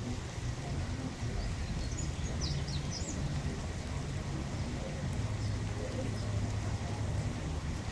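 Steady rain falling, with a low rumble under it and a few short high bird chirps about two to three seconds in.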